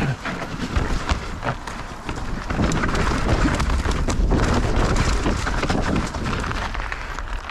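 Mountain bike ridden over rough, rooty trail: tyres rattling on the ground, the bike clattering with many sharp knocks, and wind rumbling on the action camera's microphone. It grows louder about two and a half seconds in and eases near the end.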